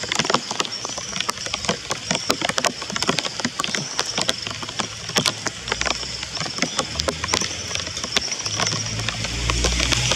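Rapid, irregular sharp taps and ticks, several a second. From about seven seconds in, the low rumble of a vehicle engine grows as it approaches.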